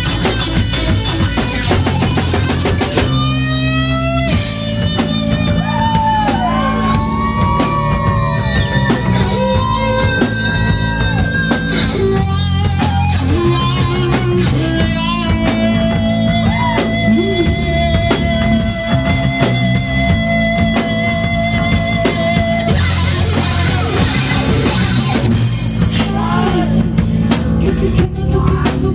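A live rock band plays loudly: electric guitar over a drum kit, with long-held and bent lead notes through the middle.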